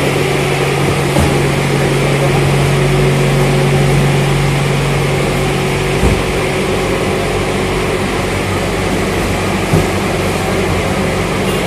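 Electric stand-up forklift working a pallet: a steady low motor hum over a loud continuous machine noise, the hum dropping away about halfway through, with two light knocks in the second half.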